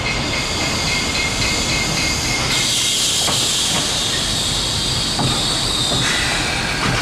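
1905 BC Electric wooden interurban car running along its track as it approaches and passes close by: steady rumbling running noise with a thin high tone at first, and a bright hiss that comes up about two and a half seconds in and drops away at about six seconds.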